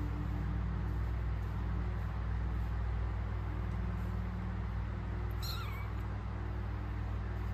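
A kitten meowing once, a short high cry falling in pitch about five and a half seconds in, over a steady low rumble.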